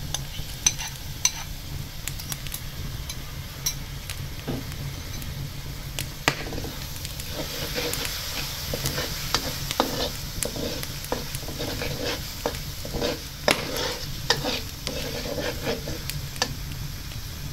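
A spatula stirring curry sauce in a wok, with sharp knocks and scrapes against the pan over a sizzling simmer. The strokes come thick and fast from about seven seconds in until near the end, over a steady low hum.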